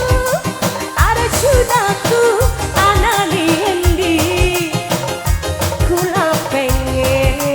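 Live tarling dangdut band music: an ornamented melody with bending, sliding notes over a steady drum and bass beat.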